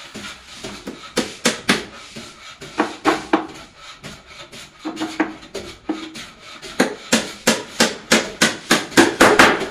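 Hammer driving nails into a plywood cabinet panel in several runs of sharp blows. The last and loudest run, near the end, comes at about three to four blows a second.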